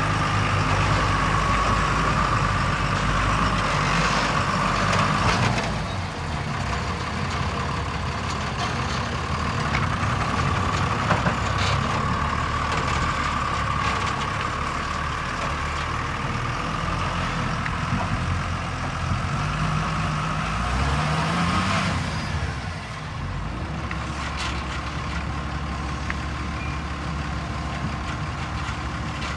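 JCB 3DX backhoe loader's diesel engine working under load, running steadily with a high whine over it. It revs up twice, in quick rising sweeps, about two-thirds of the way in, and the sound drops abruptly at two points.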